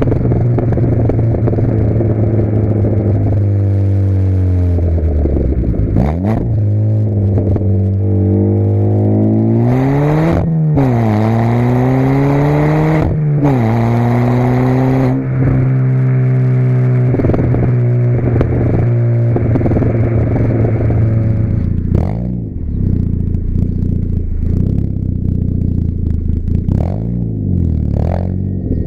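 Mk6 Ford Fiesta Zetec S 1.6-litre four-cylinder petrol engine heard through a loud, non-resonated cat-back exhaust. It holds a steady drone, then the revs climb and fall twice in the middle. Near the end the throttle lifts off and there are a few sharp pops and crackles.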